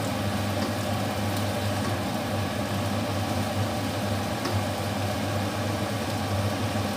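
Steady low hum with an even rushing hiss from a kitchen appliance's electric motor running, unchanging throughout.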